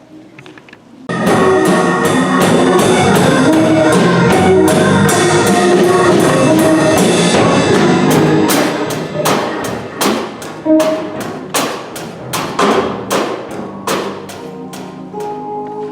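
Instrumental music with drums starts about a second in, loud and full, with a steady beat of sharp drum strokes. After about eight seconds it thins out, and the separate drum hits stand out more.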